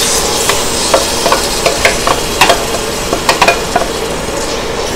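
Marinated chicken pieces sizzling as they slide into a hot pan, the sizzle starting at once and loudest at first. Irregular clicks and scrapes of a wooden spatula against the ceramic bowl and pan as the marinade is scraped out.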